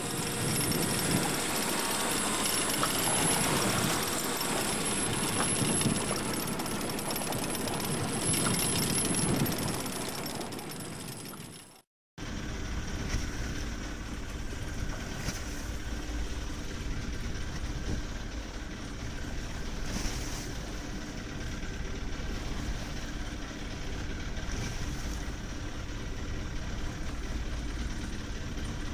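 Boat engine running, with wind and water noise loud on the microphone. About twelve seconds in the sound cuts out for a moment, and a steadier, deeper engine rumble follows.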